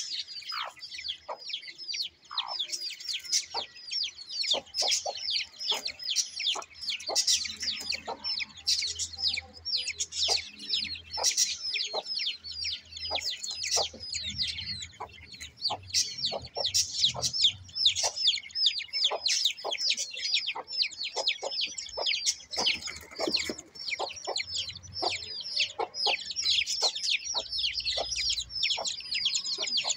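Aseel chicks peeping continuously: a dense stream of short, high peeps, several a second, with some lower, shorter calls among them.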